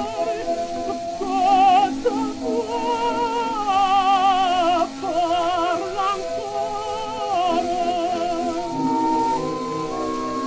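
Mezzo-soprano singing an opera aria with wide vibrato over instrumental accompaniment, on a 1907 acoustic-era 78 rpm disc recording. The voice stops about eight seconds in, leaving the accompaniment on held notes.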